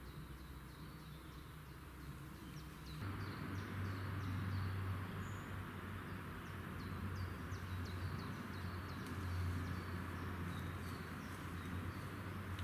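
Outdoor ambience: short high chirps repeating irregularly, a few a second, over a steady low hum that turns louder about three seconds in.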